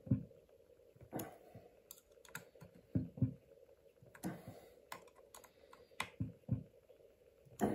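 Irregular clicks and dull knocks of small hard parts being handled and pressed into place, a few of them louder, over a faint steady hum.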